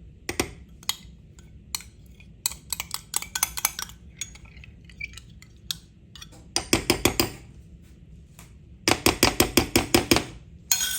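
A spoon clinking and scraping against a glass dish while softened compound butter is scooped and stirred, with scattered single clinks and two quick runs of rapid taps, about eight a second, in the second half.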